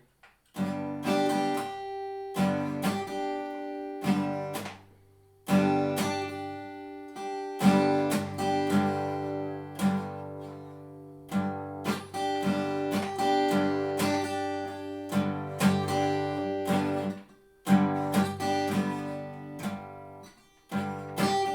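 Acoustic guitar strummed, chords struck and left to ring, stopping and starting again several times with short silences between phrases.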